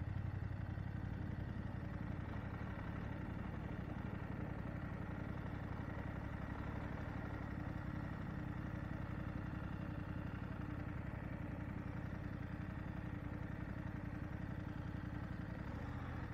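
BMW F 750 GS parallel-twin engine running steadily at low revs while the bike is ridden slowly in second gear.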